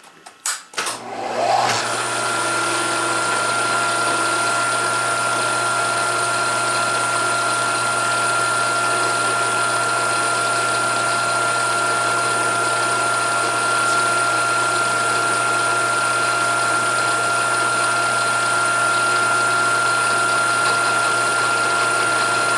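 A few clicks, then a milling machine spindle spins up with a rising whine and runs at a steady speed with an even, high-pitched whine.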